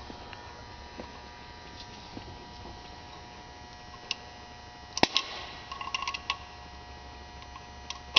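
Steady electrical hum, with a sharp metallic click about five seconds in, then a quick cluster of lighter clicks and taps and one more click near the end, from tools and fittings being handled on the engine.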